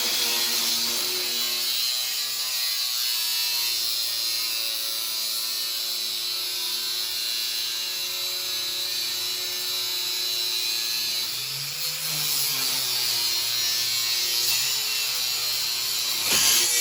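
Angle grinder running steadily while cutting metal, its motor note dipping briefly under load about twelve seconds in and again near the end.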